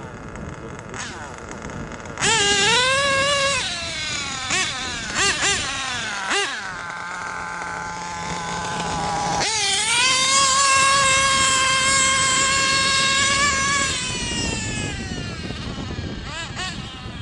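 Nitro RC monster truck's .28 glow engine revving hard. About two seconds in it rises sharply in pitch, then gives a few quick blips of throttle. It then holds a long, steady, high-pitched full-throttle whine from about ten to fourteen seconds, which falls away after.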